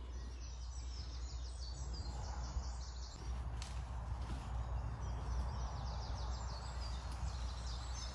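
Small birds chirping in quick repeated trills, twice, over steady outdoor background noise with a low hum underneath.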